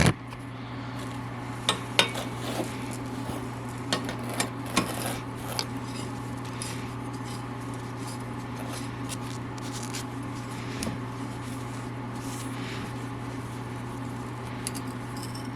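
Handling noise: a few light metallic clinks and knocks during the first several seconds, over a steady low hum.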